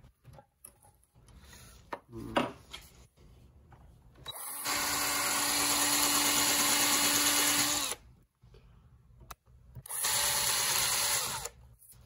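Cordless drill drilling into a small metal part of a bike-suspension damper's compression assembly clamped in a vise. It runs twice, first for about three and a half seconds starting about four seconds in, then again more briefly near the end, with a few faint clicks of handling before.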